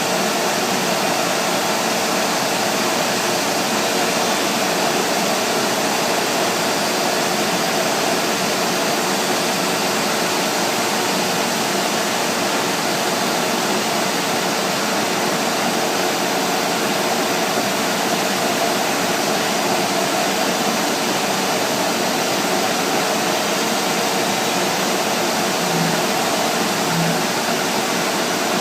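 CNC router running while machining an MDF panel: a constant, even rush of noise with a faint steady hum underneath.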